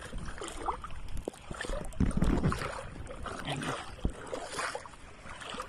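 Shallow seawater sloshing and splashing as people wade through it, with wind gusting on the microphone about two seconds in.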